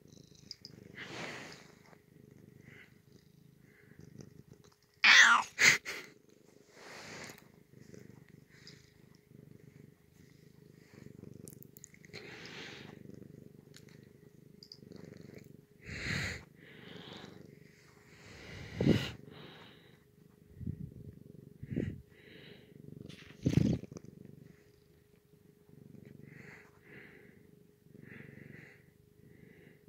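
Domestic cat purring steadily close to the microphone, broken by several short, louder sudden noises, the loudest about five seconds in.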